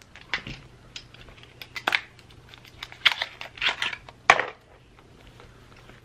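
Small gel nail polish bottles clicking and clattering as they are handled and set into the padded slots of a fabric organizer bag. There are a handful of sharp taps in the first four and a half seconds, over a faint steady hum.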